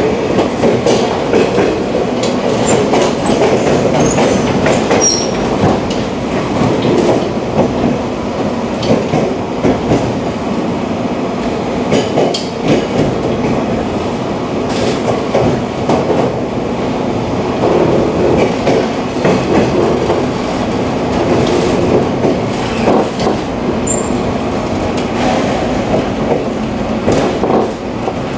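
A 485-series electric train running at speed, heard inside the carriage: a steady rumble of steel wheels on the rails with irregular clicks over rail joints.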